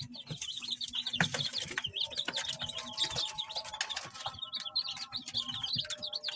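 A brood of day-old village chicks peeping continuously in quick, high chirps, with many small clicks and rustles from the chicks moving and pecking in their brooder, heaviest about a second in.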